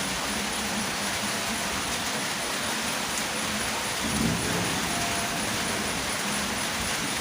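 Steady rain falling, a constant even hiss, with a brief low rumble about four seconds in.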